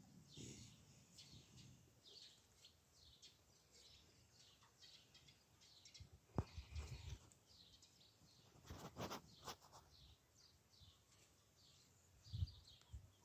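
Faint chirping of small birds, many short falling chirps repeating throughout, with a few soft thumps and a brief rustle of handling.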